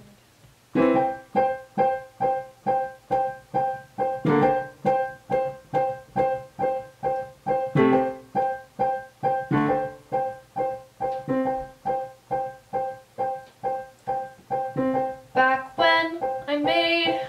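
Piano accompaniment to a song: the same chord struck over and over, about two a second, starting about a second in.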